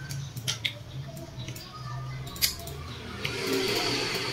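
Mouth sounds of someone chewing watermelon: a few wet clicks and smacks, with a short hiss near the end, over a low steady hum.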